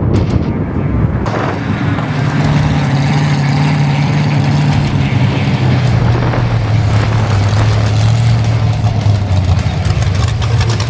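Truck engine running on the road with steady road noise; the engine pitch drops gradually about halfway through as it slows or shifts.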